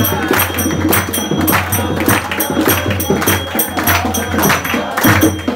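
Group music with hand clapping and jingling percussion keeping a fast, steady beat, with voices singing along.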